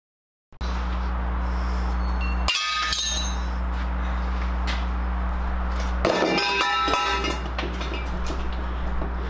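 Old rusty exhaust pipes and a steel muffler dropped onto asphalt: two bouts of metallic clanking with ringing, about two and a half seconds in and again around six seconds in, over a steady low hum.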